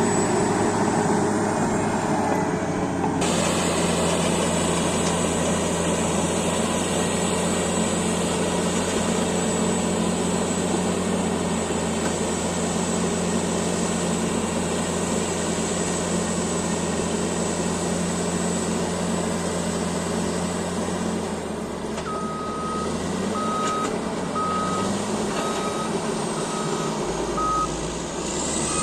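Cat D8T bulldozer's C15 diesel engine running steadily under work. Near the end the engine note dips and rises, and the reverse alarm sounds about six evenly spaced beeps as the dozer backs up.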